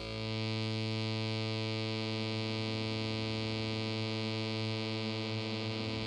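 Korg NTS-1 digital synthesizer playing its custom UberSaw v1.1 oscillator, a detuned supersaw: one held low note, bright and rich in overtones, with a wavering, beating texture. It changes to another note right at the end.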